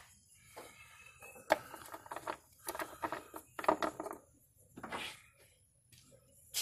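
Scattered light clinks, taps and rustles from hands working on the stopped engine, small parts and a rag being handled, with no engine running.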